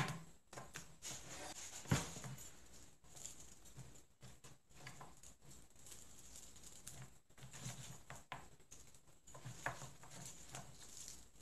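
Onion slices being pulled apart into rings by hand on a wooden cutting board: faint crinkly handling sounds and light taps, with one sharper knock about two seconds in.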